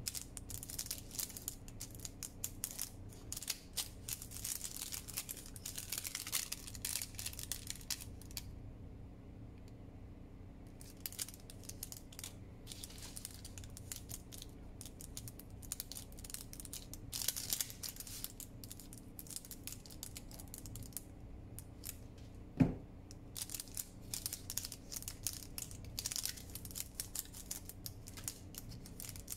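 Parchment paper baking cup being folded and creased by hand: crinkling and rustling in short spells with brief pauses. One sharp knock about three-quarters of the way through.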